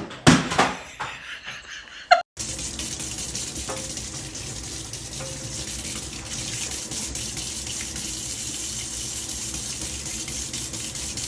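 Kitchen tap running steadily, its stream splashing into a stainless-steel sink. The tap sound starts abruptly about two seconds in, after a few loud short sounds.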